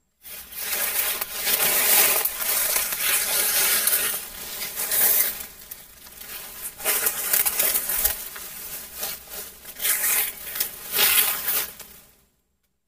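Rustling and brushing of leaves and undergrowth in uneven surges, over a faint steady buzz. It dies away shortly before the end.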